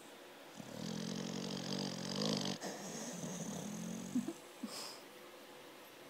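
American Staffordshire terrier snoring in deep sleep: a long, rough snore lasting about four seconds, with a wheezy hiss in its first half. It ends in two short clicks near the end.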